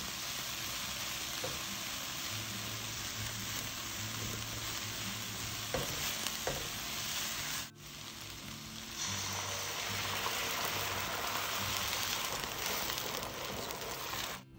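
Chopped onion and green onion sizzling in a hot nonstick frying pan over medium heat while a silicone spatula stirs them. After a short break about eight seconds in, the sizzle comes back louder as a cup of water is poured into the hot pan.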